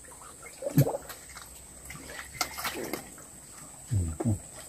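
Hands groping through shallow muddy water for fish, with scattered small splashes and sloshing. Short bits of a man's voice or grunts come about a second in and again near the end.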